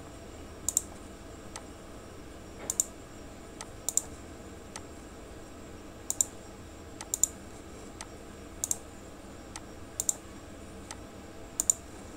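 Computer mouse clicking: sharp single and paired clicks every second or so, over a faint steady background hum.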